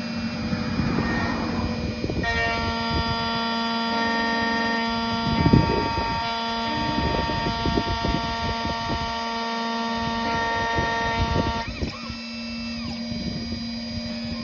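An electronic key cutting machine is milling a Volkswagen Transporter T5 key blade. The spindle motor gives a steady whine made of many tones over an uneven low rattle from the cutter working the metal. Near the end the steady whine drops away and short rising-and-falling whirs follow as the carriage moves.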